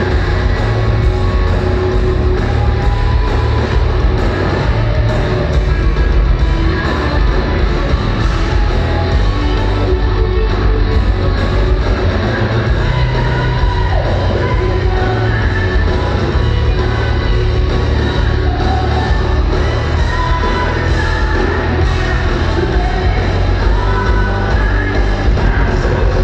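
Hard rock band playing live and loud, recorded from the audience in a concert hall: electric guitars, bass and drums with a heavy low end, and a woman singing over them.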